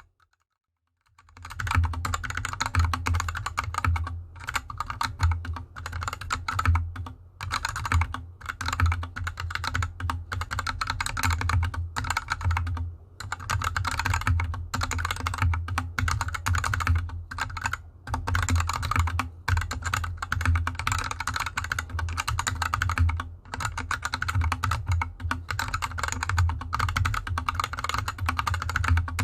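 Rapid, continuous typing on a GK64X mechanical keyboard with unlubed Gateron Yellow linear switches and DSA keycaps, the board sitting on a desk mat. It starts about a second in, after a brief silence, as a dense stream of keystrokes with a deep low thud under the clicks.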